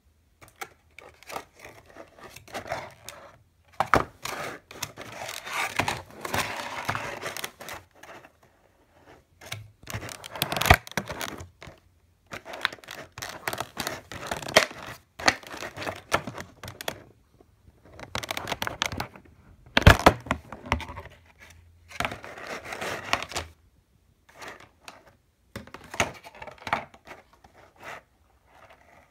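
Clear plastic blister packaging being handled and pried apart to free a pair of on-ear headphones: irregular crinkling, crackling and tearing, in stop-start bursts with a few sharp knocks.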